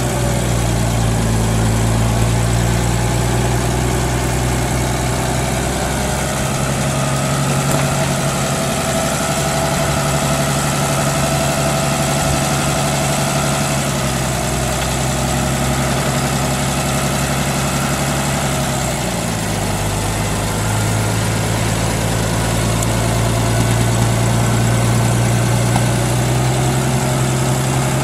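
1964 International F706 tractor's six-cylinder gas engine running steadily at low speed as the tractor drives slowly. Its note shifts slightly about two-thirds of the way through.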